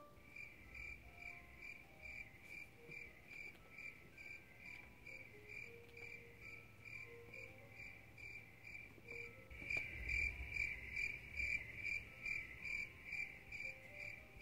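Crickets chirping in a steady rhythm of about two chirps a second, growing a little louder about ten seconds in.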